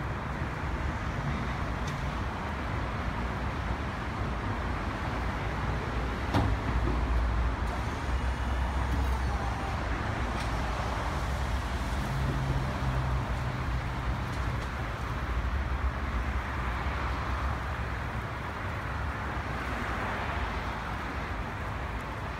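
Heavy-duty ride-on electric pallet truck driving and carrying a 10-tonne load: a steady low motor hum over outdoor rumble, with a single sharp knock about six seconds in.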